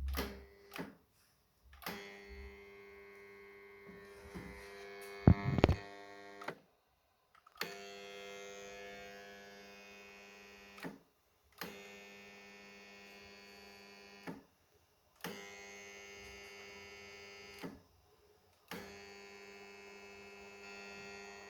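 Kärcher SC 5 steam cleaner humming like a transformer: a steady electric hum that comes on and cuts off five times, each spell lasting a few seconds and starting or ending with a click. A sharp knock, the loudest sound, comes about five seconds in.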